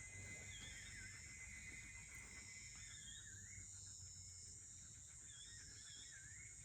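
Faint evening insect chorus: a steady, high-pitched electric-like buzz from an insect known locally as the 'electricity cricket', with a bird's short warbling calls repeating every second or two over it.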